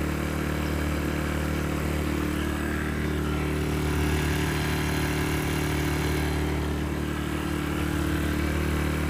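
Sportsman 1000-watt inverter generator running steadily, freshly started and nice and quiet.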